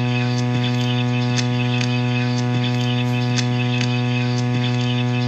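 Loud, steady electronic drone: a low buzzing hum with many overtones, ticked by a faint click about twice a second.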